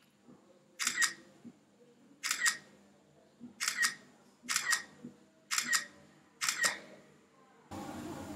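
iPhone 5s camera shutter sound, a quick double click, playing six times about once a second as photos are taken in HDR mode. Near the end a steady hiss comes in suddenly.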